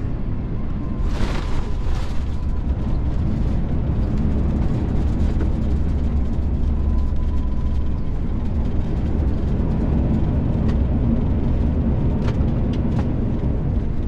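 Jet airliner cabin noise from an Airbus A350-1000: a loud, steady low rumble, with a brief rushing burst about a second in.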